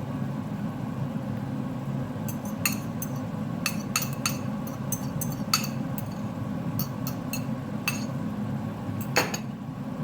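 A utensil clinking and tapping irregularly against a bowl, about fifteen sharp clinks, while beaten egg is mixed into cooked potatoes. A steady low hum runs underneath.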